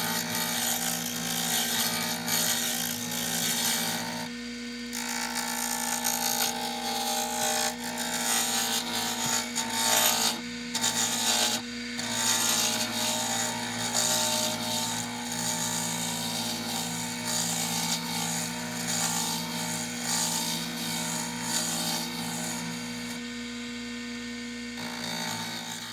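Small wood lathe running with a steady motor whine while a hand-held turning tool scrapes and cuts a spinning glued-up wooden pen blank on its mandrel. The cutting noise stops briefly a few times as the tool lifts off, leaving only the lathe motor.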